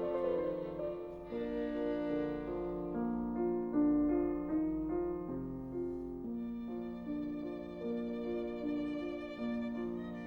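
Background music: a violin playing a slow melody of held notes, with a soft accompaniment beneath.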